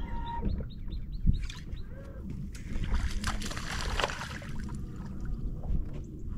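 Open-water ambience around a small fishing boat: a steady low rumble, a quick run of short, falling high chirps in the first second, and a burst of hiss from about two and a half to four and a half seconds in.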